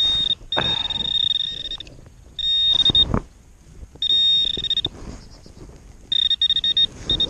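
Metal-detecting pinpointer giving a steady high-pitched electronic tone in about six on-off stretches as it is passed over and into the dug soil, sounding on a buried metal target. Short scraping knocks of soil being handled come between the tones.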